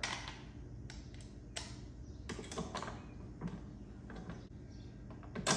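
Scattered light clicks and knocks of hard plastic pressure-washer parts being handled and fitted together as the spray wand is set onto its holder, the loudest knock near the end.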